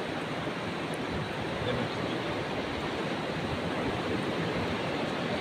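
Steady, even rush of sea waves and wind.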